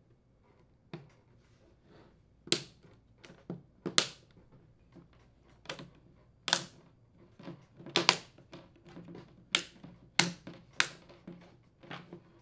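Plastic snap-fit clips of a refrigerator flapper's inner panel clicking into the metal outer panel as it is pressed down along its length: about a dozen sharp clicks at uneven intervals.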